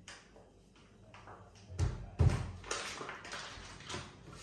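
Two dull thumps about half a second apart, then rustling and scraping, as a soft mascarpone dough is pressed and handled on the work surface during kneading.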